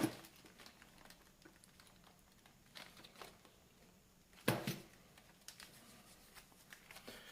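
Packaging being handled while a parcel is unpacked: faint rustling and light clicks, with a louder rustle about four and a half seconds in.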